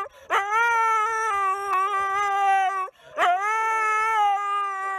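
Husky howling: two long drawn-out howls, each swooping up sharply at the start and then held on a steady pitch, with a short break between them about three seconds in.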